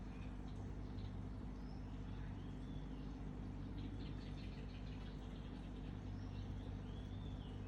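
Small birds chirping faintly: thin, high, arched cheeps, with a quick run of short ticking notes about halfway through, over a steady low hum.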